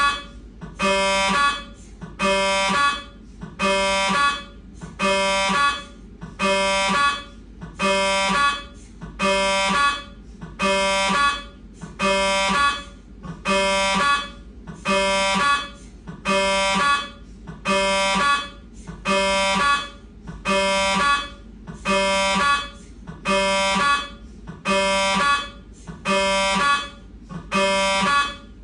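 Siemens MAGNETOM Lumina 3 T MRI scanner running a fat-saturated coronal T2 HASTE sequence. The gradient coils give a loud pitched buzz in bursts of about half a second, repeating roughly once a second, over a steady low hum.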